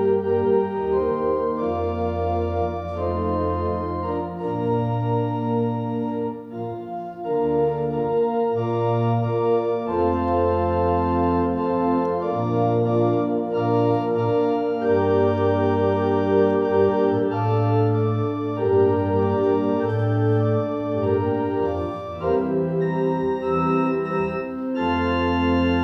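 Two-manual church organ playing a slow hymn: sustained full chords over deep bass notes that change every second or two.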